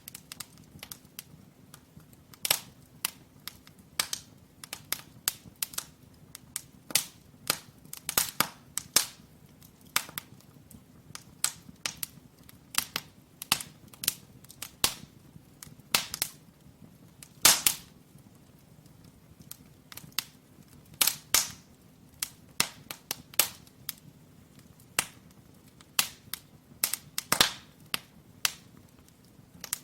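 Burning firewood crackling in an open fireplace: irregular sharp pops and snaps, several a second at times, over a faint steady hush of the fire. One pop about halfway through stands out as the loudest.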